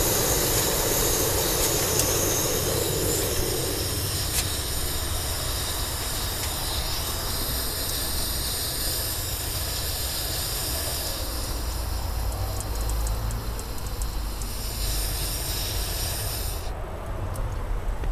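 Gas camping stove burner hissing steadily with its ring of flame lit. The burner is turned down near the end, and the high hiss cuts off about seventeen seconds in.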